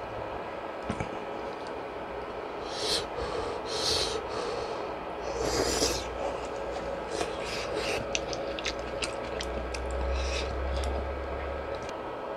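Close-miked eating of fish cake soup: soft chewing clicks and a few breathy bursts of noise.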